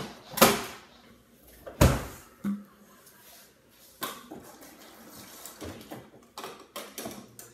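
A few sharp knocks and thuds of a refrigerator door and plastic bottles being handled, the loudest about half a second and two seconds in, followed by quieter clicks and rustling.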